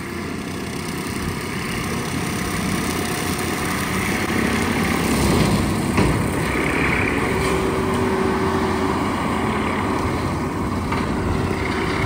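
John Deere compact track loader running its diesel engine under load while its front-mounted brush hog shreds tall weeds, the machine noise growing louder over the first few seconds as it comes nearer. A single sharp knock sounds about halfway through.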